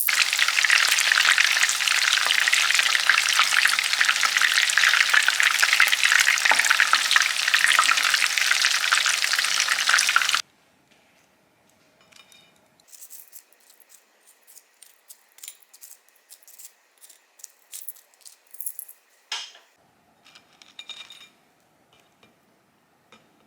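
Food frying in a hot pan, a loud, dense sizzle that cuts off suddenly about ten seconds in. After that, only faint scattered clicks and taps.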